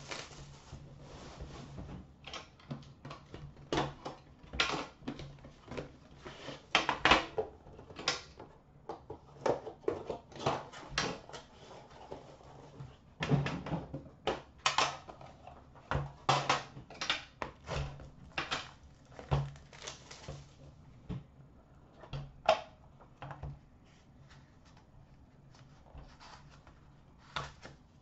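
Plastic shrink wrap crinkling and tearing as it is stripped off a sealed trading-card box, with the box handled and opened: irregular sharp crackles, rustles and small knocks, thinning out toward the end. A faint steady hum lies underneath.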